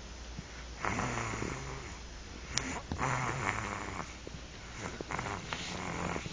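Snoring: three long, slow snoring breaths about two seconds apart, each with a low drone.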